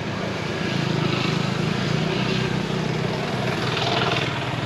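Honda GB350's air-cooled single-cylinder engine running steadily under way, with wind rush over the helmet-mounted microphone.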